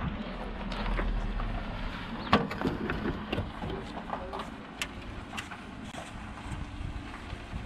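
Fiat Ducato's 2.3 Multijet diesel engine idling with a steady low hum, with scattered clicks and knocks over it.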